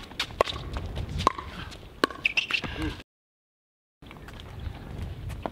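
Pickleball rally: sharp pops of paddles hitting the plastic ball, with smaller ticks of the ball bouncing and shoes on the hard court over a low wind rumble. The sound cuts out completely for about a second midway.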